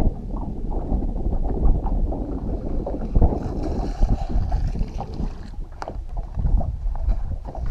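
Wind rumbling on the microphone and small waves lapping at the boat's hull. From about three and a half to five and a half seconds in, a hooked largemouth bass splashes at the surface beside the boat.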